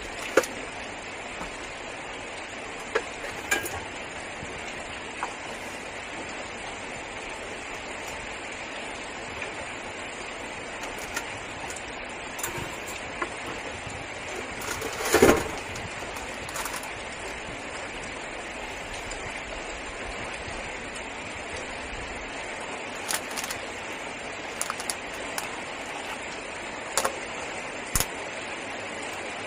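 Heavy rain falling steadily on a car's roof, heard from inside the cabin. Scattered clicks and knocks of a plastic food container, an enamel mug and a knife being handled on a tabletop, the loudest knock about halfway through, and the container's plastic lid opening near the end.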